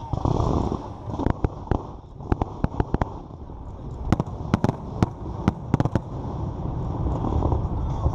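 Fireworks display going off: a continuous low rumble, with a quick string of sharp cracks and bangs from bursting shells through the middle.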